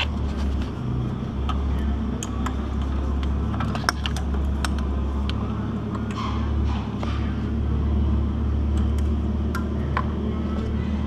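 Light clicks and short rattles of an engine wiring harness and its plastic connectors being handled and routed, over a steady low hum.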